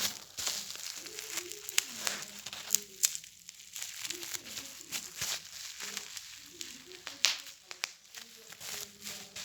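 Plastic bubble wrap being squeezed and popped by hand: irregular sharp pops, a few much louder than the rest, among crinkling of the plastic.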